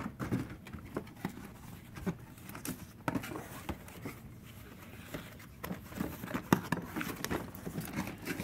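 Cardboard toy box being handled and pulled open by hand: scattered light taps, scrapes and rustles of cardboard, a little busier near the end.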